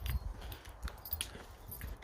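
Footsteps of a walker and a dog on a hard path: irregular light taps and clicks, with a low wind rumble on the microphone.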